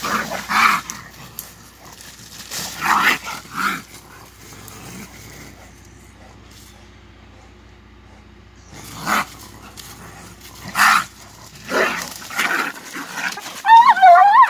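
Blue Lacy dog fighting a raccoon: short loud bursts of scuffling and growling, a quieter lull in the middle, and a loud, high, wavering squeal near the end.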